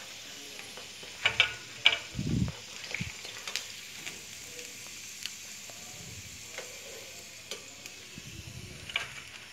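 Sabudana vadas deep-frying in hot oil in a kadhai, a steady sizzle, with a steel spoon clicking against the pan a few times as the vadas are lifted out and drained.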